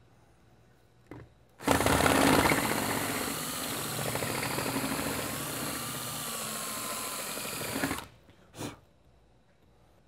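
Power drill running for about six seconds, its bit cutting into the plastic at the end of a prosthetic socket to open the hole for the lock's pin, loudest as it starts, then a brief burst of the drill about a second after it stops.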